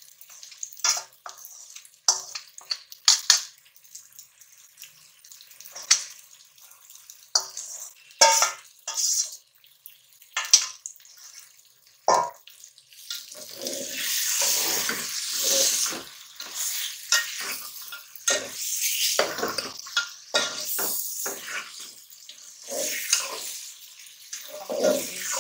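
A metal spatula scrapes and clicks against a bowl and an aluminium pot, then stirs bitter gourd peel and masala frying in oil. From about halfway through a steady sizzle runs under repeated scraping strokes.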